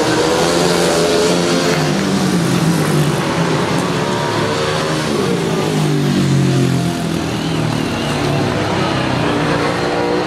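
Several speedway motorcycles racing, their single-cylinder methanol-fuelled engines running hard and rising and falling in pitch as the riders go through the bends.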